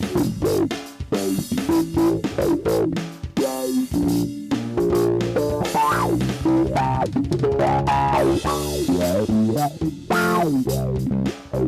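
Rock band playing: electric guitar and bass guitar over a drum kit, with a loud, steady beat.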